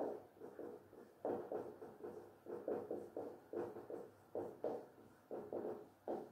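Marker pen writing on a whiteboard: irregular short squeaky strokes, about three a second, with brief pauses between letters.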